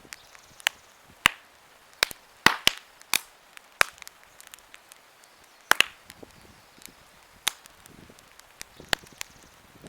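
Wood campfire crackling: irregular sharp pops and snaps, about fifteen of them, over a faint hiss, with a short lull a little past the middle.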